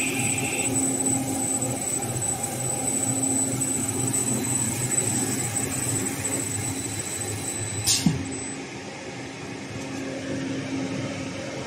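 HS1300 plastic film slitter rewinder running, a steady mechanical hum with a thin high whine as the slit film winds onto the rolls. A single sharp click comes about eight seconds in, and after it the whine fades and the machine runs a little quieter.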